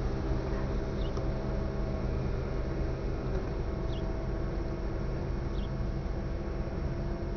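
Steady low engine drone of a large ship's diesels across the water, holding several even pitches without change. Three faint short high chirps come over it.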